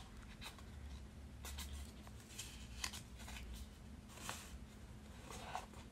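Faint rustling and soft taps of paper and card being handled: a paper guarantee booklet and a small cardboard jewellery box, with a few light clicks scattered throughout.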